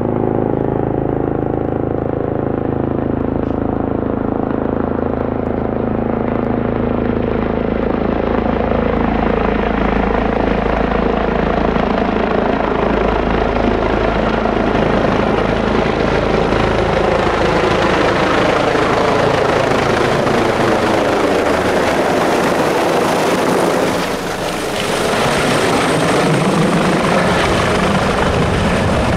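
Airbus H145 twin-turbine helicopter approaching low overhead and descending to land, with continuous main-rotor and turbine noise. The high-pitched part grows stronger as it comes near, and there is a brief dip in loudness about three quarters of the way through.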